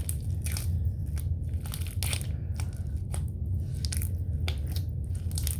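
Thick slime being mixed and kneaded by hand, giving irregular sticky crackles and squelches, over a steady low hum.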